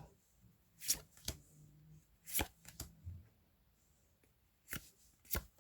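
Pokémon trading cards being flipped through by hand: about six short, sharp flicks and snaps of card against card, spread across a few seconds.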